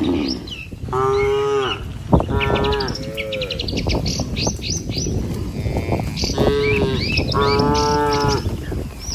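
A herd of cattle mooing, about six drawn-out calls, some overlapping, with birds chirping high above them throughout. A single sharp knock comes about two seconds in.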